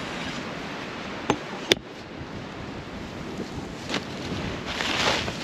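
Strong wind blowing steadily, buffeting the microphone, with two sharp knocks close together a little over a second in. Near the end a gust swells louder.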